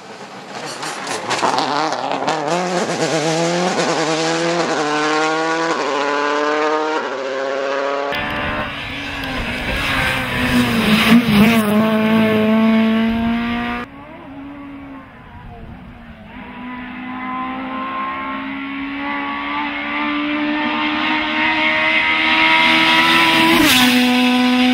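Rally cars driven hard, one clip after another: first a Subaru Impreza WRC accelerating up through the gears, its engine note climbing and dropping back with each shift; after a cut about eight seconds in, a Honda Civic rally car at full throttle on a wet road; after another cut, a third rally car whose engine note rises steadily and drops sharply near the end as the driver lifts off or shifts.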